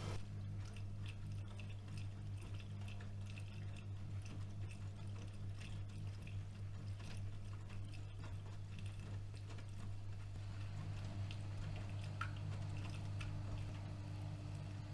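AEG Öko-Lavamat washing machine in its wash phase: water and laundry sloshing in the turning drum in irregular splashes, over a steady low motor hum.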